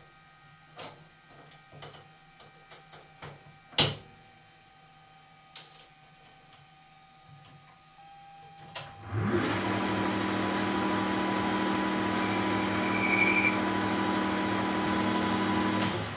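Light clicks and knocks of a bar being clamped in a lathe's three-jaw chuck, with one sharp metallic clack about four seconds in. About nine seconds in, the 1972 Weiler Matador SV lathe starts and runs steadily at 2400 rpm for a facing cut, then stops at the end.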